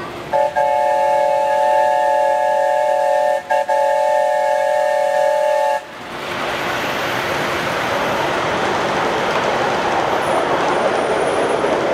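Miniature ride-on steam locomotive sounding its whistle: a steady chord of several tones held for about five seconds, with two brief breaks. Then the train and its passenger cars run close past as a loud, steady rush of noise.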